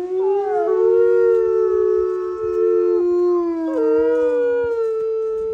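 Two timber wolves howling together, two long overlapping howls held steady, one pitched a little above the other. The lower howl stops about four and a half seconds in, while the higher one breaks briefly and carries on.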